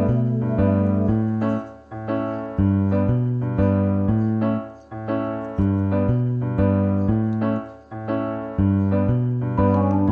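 Background piano music: a gentle keyboard piece with regularly struck notes and a bass line that moves every second or so.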